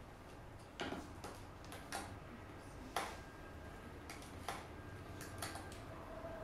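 Scattered light clicks and taps at an uneven pace, about eight in all, the sharpest about three seconds in, over a low steady room hum.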